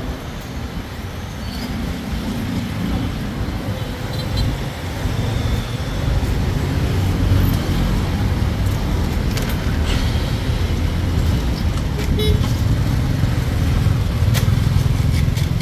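Road traffic running steadily, a low engine rumble that grows louder about a third of the way in, with a short horn toot near the middle.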